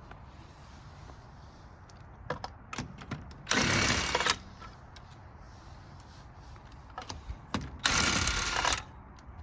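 Impact wrench loosening lug nuts: two bursts of about a second each, one a few seconds in and one near the end, with small clicks and knocks of the socket and hand tools around them.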